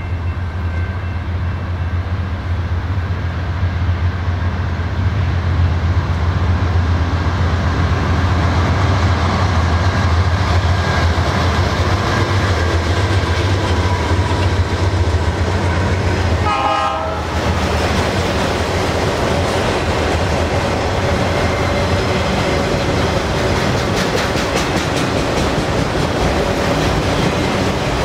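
Diesel freight locomotives, GE C44-9W units, passing with a loud, steady low engine drone that builds toward the middle. After the locomotives, a long string of freight cars rolls by with steady wheel-on-rail noise, and rhythmic clicking over rail joints near the end.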